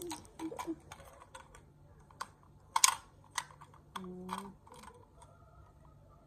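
Hard plastic action figures clacking against each other and tapping on a tile floor in a string of irregular sharp clicks, the loudest cluster about three seconds in. A short hummed vocal tone comes about four seconds in.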